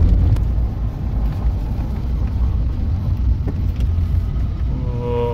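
Road noise inside a car's cabin on a dirt road: a steady low rumble from the tyres and engine, with a few light knocks.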